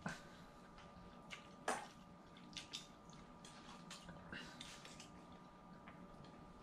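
Quiet meal sounds: a few scattered soft clicks and small wet smacks of people eating, the loudest about a second and a half in, over a faint steady hum.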